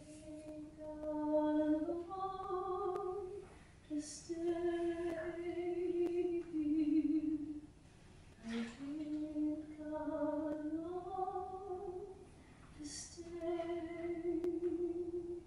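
A woman singing unaccompanied, without clear words, in four slow phrases of long held notes, drawing an audible breath before each new phrase.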